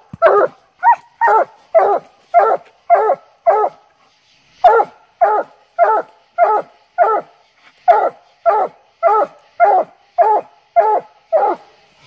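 English coonhound barking steadily and rhythmically up a tree, about two barks a second with one short pause about four seconds in: her tree bark, the sign that she has a raccoon treed.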